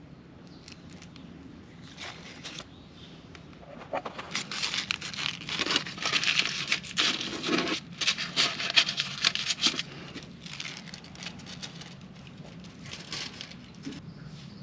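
Rustling and crinkling handling noise with many small clicks, thickest in the middle few seconds, like paper or plastic being crumpled and handled.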